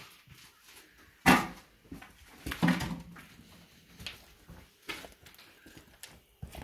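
Footsteps and handling noise of someone walking outdoors, with a loud knock about a second in and another sharp knock with a brief low tone about a second later.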